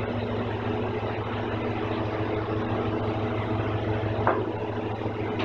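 Rikon 25-210H jointer-planer with its helical cutterhead running with no wood in the cut between jointing passes: a steady hum.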